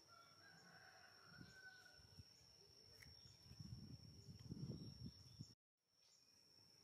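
A rooster crows faintly in the distance, one held call with a slight rise, over a steady high insect whine. Low rumbling thuds build in the second half and are the loudest sound, then everything cuts out abruptly for a moment before the faint background returns.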